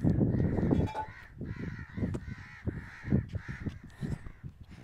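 Crows cawing over and over, the calls following one another about every half second. Gusts of wind buffet the microphone as a low rumble, loudest in the first second.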